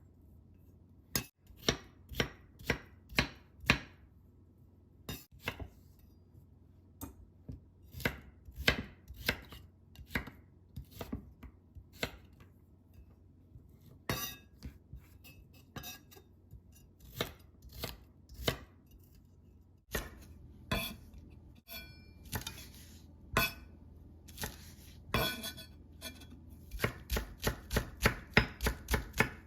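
Kitchen knife chopping vegetables on a cutting board: a series of sharp strikes with short pauses, closing in a quicker run of about four chops a second near the end.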